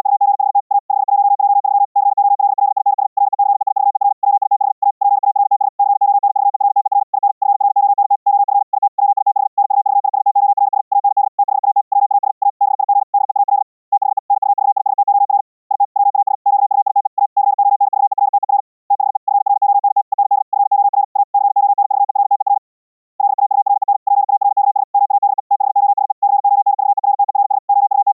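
Fast Morse code (CW): a narrow-band note centred near 800 Hz, made from Gaussian noise instead of a pure sine wave, keyed on and off in rapid dits and dahs with a few short breaks between groups.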